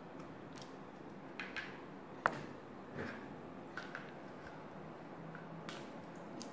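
Small wooden board-game worker pieces being picked up off a cardboard game board: a few scattered light clicks and taps, the sharpest a little over two seconds in.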